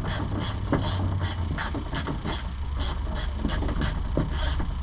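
Rapid, even mechanical clicking, about three clicks a second, over a low steady hum, with a couple of soft knocks.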